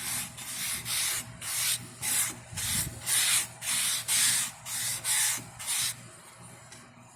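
Fine sanding sponge rubbed back and forth over a carved wooden knife handle, in even rasping strokes about two a second. The strokes stop about six seconds in.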